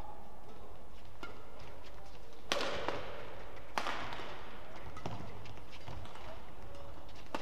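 Badminton rackets striking the shuttlecock in a doubles rally: sharp cracks that ring briefly in the hall, the two loudest about two and a half and nearly four seconds in, with lighter hits between.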